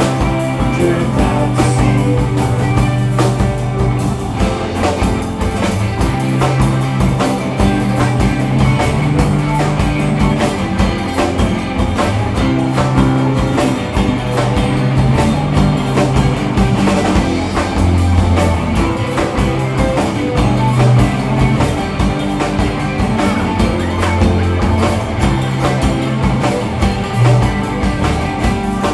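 Live alt-country rock band playing: electric guitars over bass guitar and a drum kit keeping a steady beat.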